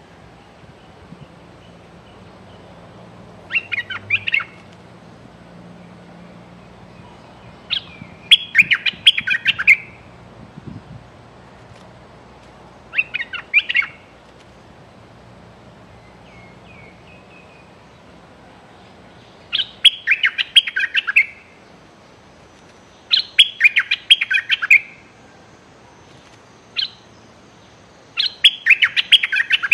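Bulbul giving harsh threat calls: about seven loud bouts of rapid, sharp chattering notes, each lasting about a second and coming a few seconds apart.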